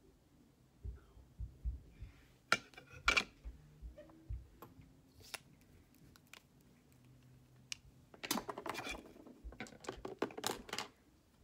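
Small hard objects being handled close by: scattered clicks and taps, then from about eight seconds in a run of quick clicking and rustling lasting a few seconds.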